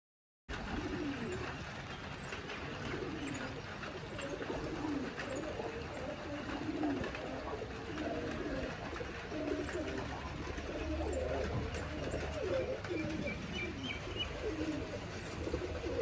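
Berlin Shortface Tumbler pigeons cooing, a continuous run of low coos, some overlapping, over a steady low hum. The sound begins about half a second in.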